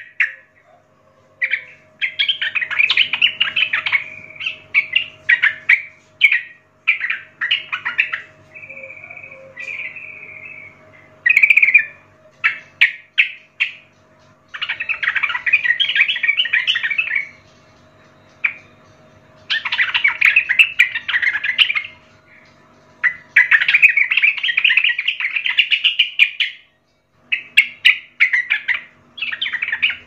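Yellow-vented bulbul singing in bursts of rapid chattering notes. The phrases last one to three seconds each, with short pauses between them.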